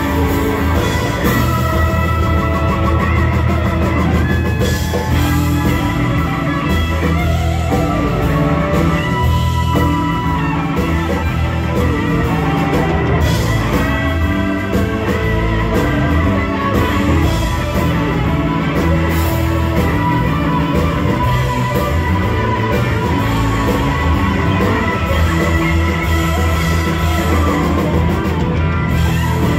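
Live blues-rock band playing: an electric guitar lead over bass guitar and drum kit.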